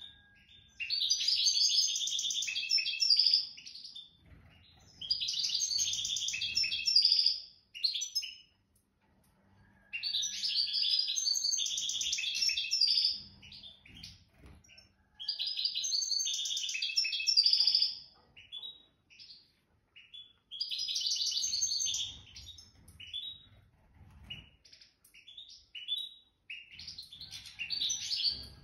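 A songbird singing in repeated phrases of rapid, high twittering, each two to four seconds long with brief pauses between, breaking into scattered short notes near the end.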